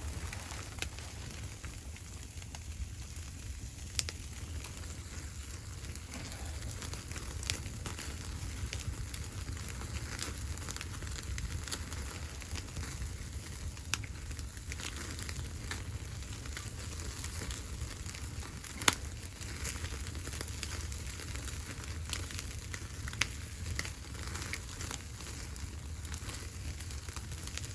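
Wood fire crackling, with sharp pops every few seconds (the loudest a little after halfway), over a steady low rumble.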